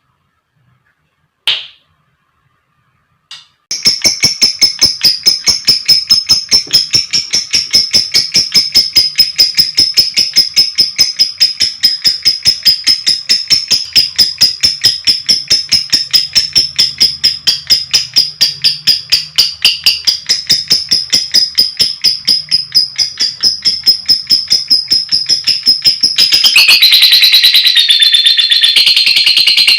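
Lovebird calling: two single shrill chirps, then a long, rapid, evenly spaced run of shrill chirps, the long 'ngekek' chatter. Near the end it turns into a denser, unbroken chatter.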